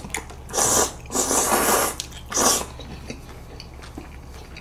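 Spicy chewy jjolmyeon noodles being slurped: three loud sucking slurps in quick succession, then only faint clicks.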